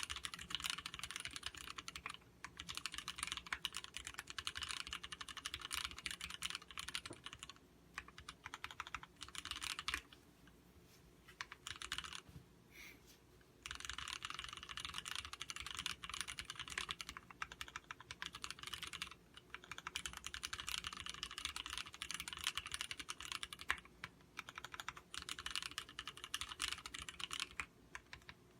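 Typing on a Duck Viper V2 mechanical keyboard with vintage Cherry MX Black linear switches: a dense clatter of keystrokes, broken by a pause of a few seconds about ten seconds in and a few shorter breaks.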